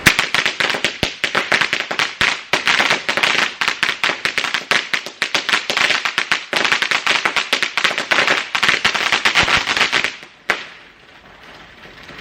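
A firework letting off a rapid, dense run of sharp cracks and bangs for about ten seconds, stopping suddenly, with one last crack about half a second later.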